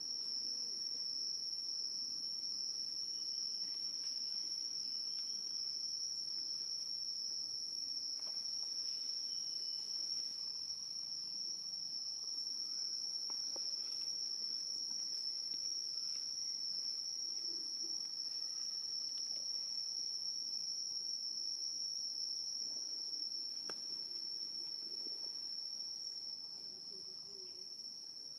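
Insects shrilling in one steady, unbroken high-pitched drone, with a few faint ticks now and then. The drone eases slightly near the end.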